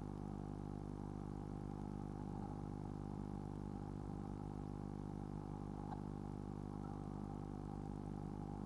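Steady electrical hum with many overtones over a faint hiss, the noise floor of a nest-box spy camera's audio. There is a single faint click about six seconds in.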